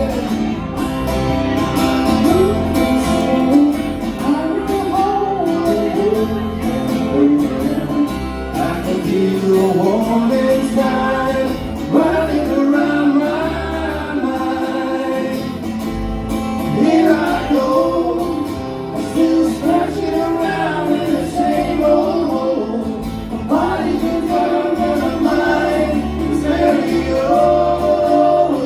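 Live music: a singer performing a song over instrumental accompaniment.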